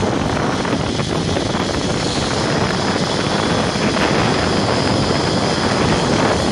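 Steady rushing wind on the microphone and the running of a zipline trolley's pulley along its steel cable during a fast zipline ride.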